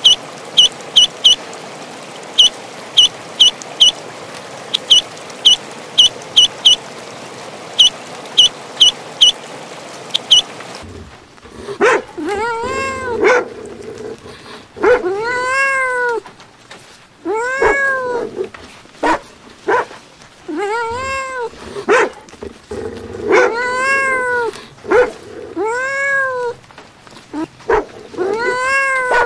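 Ducklings peeping, short high chirps about twice a second. About eleven seconds in, a kitten takes over, meowing again and again, each meow a rising-and-falling call.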